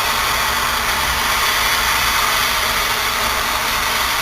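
Steady background noise with a low hum underneath, even and unchanging, with no distinct clicks or knocks.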